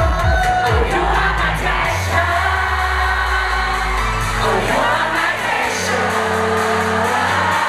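Thai boy-group pop song performed live: male voices singing over a backing track with a steady bass line.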